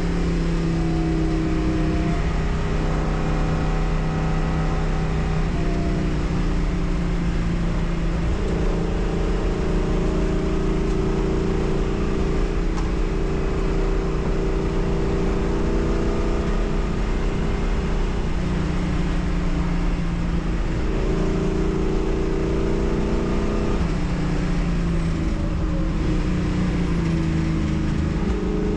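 Race car engine running hard on track. Its note climbs slowly, then steps down with each gear change, and this happens several times.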